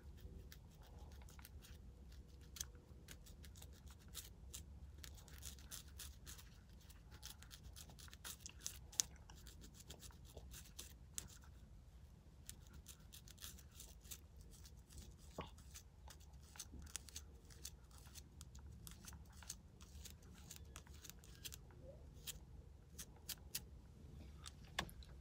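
Faint scratching of a plastic edge brush and fine-tooth comb worked against the scalp between braids to loosen dandruff flakes: a quick, uneven run of small rasping clicks, thickest in the first half and picking up again near the end.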